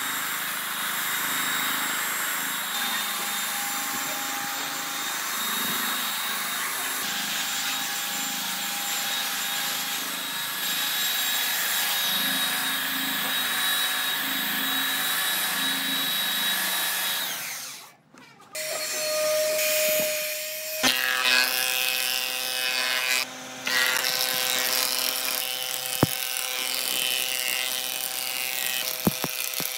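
Electric woodworking power tools running steadily on wood. The sound breaks off abruptly about eighteen seconds in. After a short steady tone, another tool runs steadily, with a few sharp knocks near the end.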